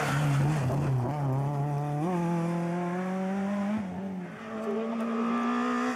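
Renault Clio rally car passing close through a bend, tyres scrabbling briefly as it goes by. Its engine note drops as it passes, then climbs again as it accelerates away and fades a little into the distance.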